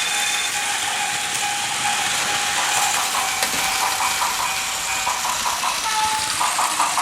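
Plarail toy trains running on a plastic track layout: a steady motor whine over hiss. Near the end a quick, even run of ringing clicks comes in.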